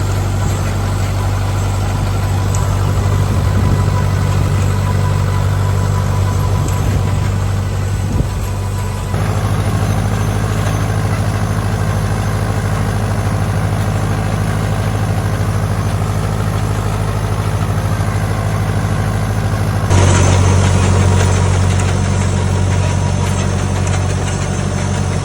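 An engine running steadily at idle, with a strong low hum. The sound shifts abruptly twice, about nine and twenty seconds in.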